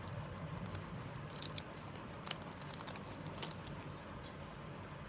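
Thin plastic shrink-wrap crackling in short, irregular crinkles as it is peeled off a cardboard phone box, over a steady low hum.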